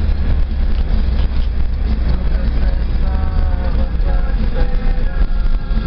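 A car driving on a highway, heard from inside the cabin: a steady low rumble of engine and road noise. Faint voices come in over it in the second half.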